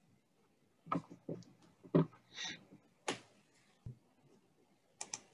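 Faint scattered clicks and knocks, about eight in five seconds, with a short hiss in the middle: small handling noises from someone moving at a desk.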